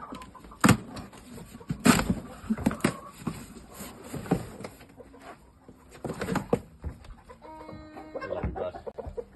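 Gamefowl clucking, with one drawn-out call near the end, among sharp knocks and scuffling; the loudest knocks come about one and two seconds in.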